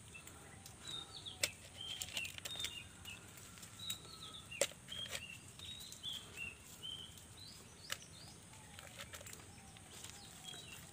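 Birds chirping faintly in short repeated calls, with a few sharp clicks and light rustles as pieces of dry coconut husk are laid into a plastic plant pot.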